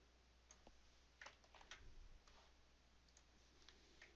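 Near silence with scattered faint clicks from a computer mouse and keyboard being worked.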